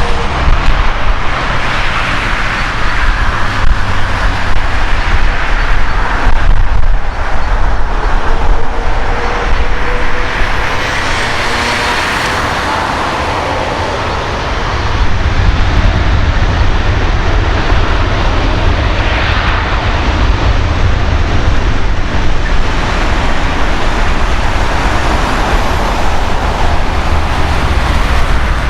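Airbus A380's four Engine Alliance GP7200 jet engines at takeoff power, a continuous loud rumble, with a faint falling tone about a third of the way in. Strong wind buffets the microphone throughout.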